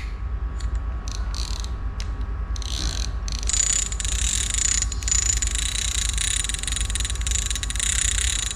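Shimano Ocea Jigger F Custom 1501HG jigging reel: a few separate clicks from its mechanism, then from about three and a half seconds in a steady fast ratcheting whirr of its gears as the handle is turned.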